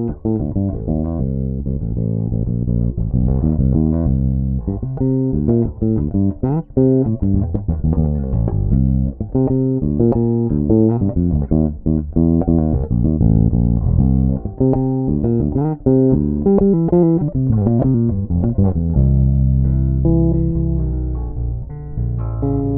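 Ash-bodied Sandberg Masterpiece five-string electric bass played solo, recorded direct with no amp or room sound, in passive mode. A busy line of plucked notes, then a long held low note near the end.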